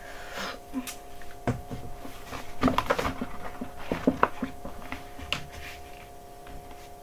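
Handling noise: rustling and scattered knocks as a large green sheet is moved and pressed against a wooden bed frame, with the loudest knocks in the middle, over a steady low hum.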